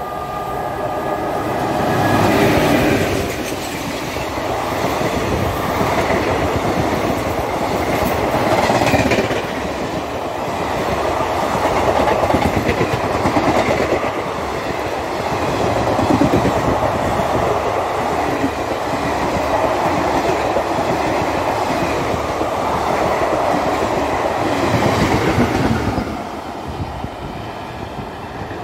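Express train of passenger coaches hauled by a WAP-4 electric locomotive passing at speed: a steady rush of wheels on rail with repeated clickety-clack swells as the bogies cross the rail joints. It dies down near the end as the last coaches go by.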